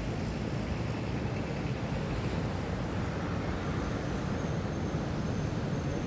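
City ambience: a steady wash of distant road traffic. Faint thin high-pitched tones come and go in the second half.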